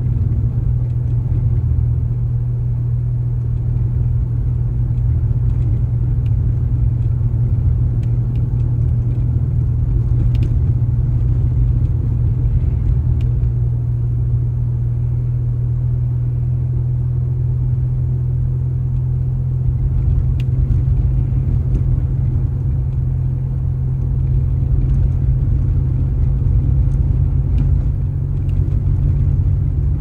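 Car driving: a steady low rumble of engine and road noise, with a few faint ticks.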